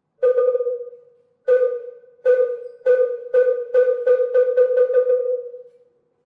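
Korean Buddhist wooden fish (moktak) struck about a dozen times, slow at first and then quickening into a roll, each hollow knock ringing at the same pitch; the last stroke dies away near the end.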